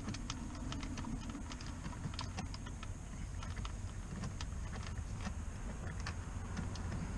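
Irregular small clicks and taps of hands fitting toggle switches and a switch plate into a Jeep Grand Cherokee's dash, over a steady low background rumble.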